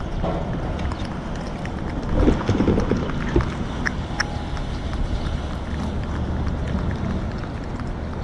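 Cat licking Churu paste from a plastic spoon: small wet clicks of its tongue over a steady low outdoor rumble, with a louder low burst about two seconds in.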